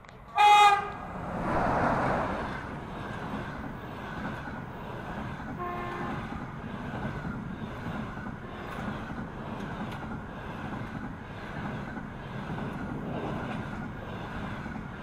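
EP20 electric locomotive sounding a loud, short horn blast just under a second in, then passing with a swell of noise. Its passenger coaches follow, rolling by with a steady rumble and rhythmic wheel clatter, and a fainter short horn toot comes about six seconds in.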